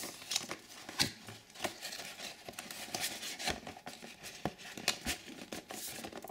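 Cardboard phone box being handled and opened: the outer printed sleeve worked open and the inner card box slid out, giving scattered scrapes, taps and rustles of card.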